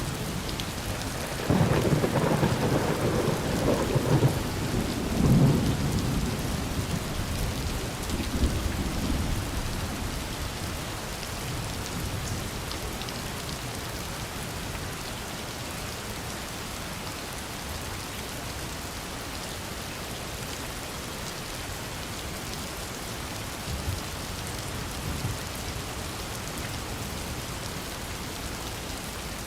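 Steady heavy rain with a loud roll of thunder starting about a second and a half in, cracking again around five seconds and rumbling away over the next few seconds; faint distant rumbles follow near the end.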